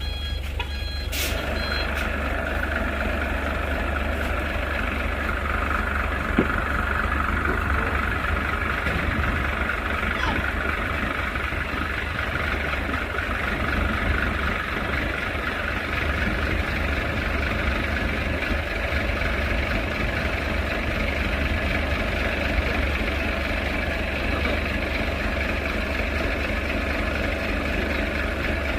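Heavy truck diesel engine running steadily under load, with a continuous mid-pitched whine over the engine noise.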